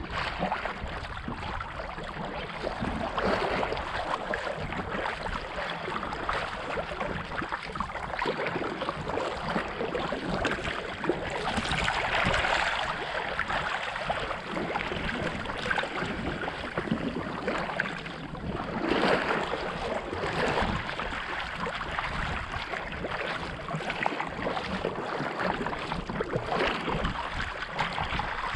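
A sea kayak moving through choppy sea: paddle blades splashing in and out and waves slapping and washing along the hull, heard close to the water. The splashing is continuous, with louder surges about twelve and nineteen seconds in.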